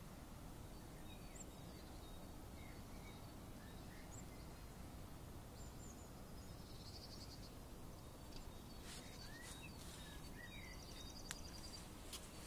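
Faint steady outdoor background hum with scattered small bird chirps and a couple of short trills, which come more often in the second half along with a few sharp clicks.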